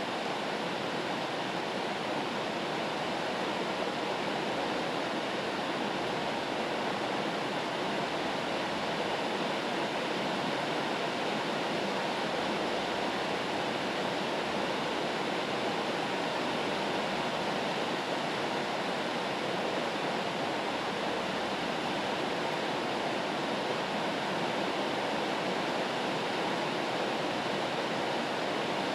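Rain white noise: a steady, even hiss with no changes, gaps or separate events.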